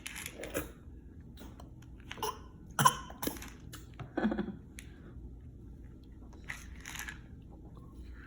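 A baby's scattered small sounds: brief coughs and mouth noises, with a few sharp clicks in between.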